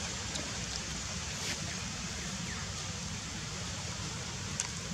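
Steady outdoor noise like wind on the microphone, with a low rumble and a few faint ticks.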